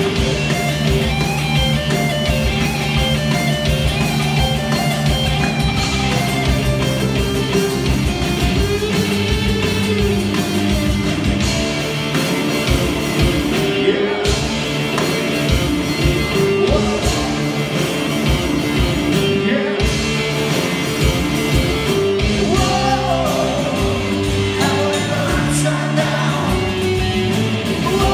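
Rock band playing live: a singer over electric and acoustic guitars, with a steady beat.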